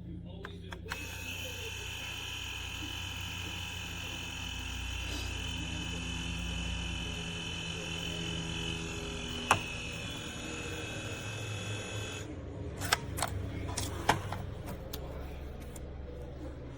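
DYMO LetraTag handheld label maker's small print motor whirring steadily as it feeds tape for about eleven seconds, then stopping, followed by a few sharp clicks.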